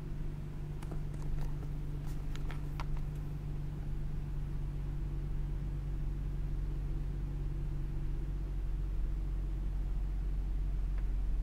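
Toyota Soarer's 1JZ-GTE 2.5-litre twin-turbo straight-six idling steadily, heard from inside the cabin. A few light clicks come between about one and three seconds in.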